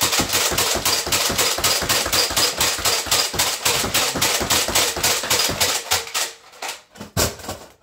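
Stock Nerf Alpha Trooper pump-action blaster being pumped and fired in rapid succession, a fast run of plastic clacks several a second that slows and breaks up near the end.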